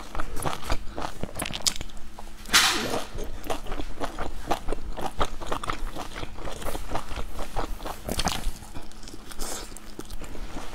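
Close-miked eating sounds: biting into and chewing pan-fried dumplings dipped in chili sauce, a run of short, wet clicks and smacks, with one louder, longer noisy bite about two and a half seconds in.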